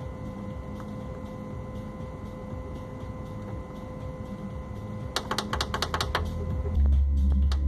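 Small cooling fan in a Sony BDV-E4100 home theater sound panel running with a steady hum and thin whine, the normal sound of this model's fan. A quick run of clicks comes about five seconds in, and a loud deep rumble starts near the end.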